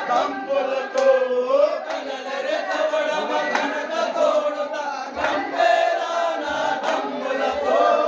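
A crowd of men chanting together, many voices overlapping, with a few hand claps among them.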